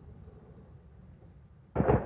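Aerial firework shells bursting: a low rumble dies away, then a sudden cluster of loud booms near the end.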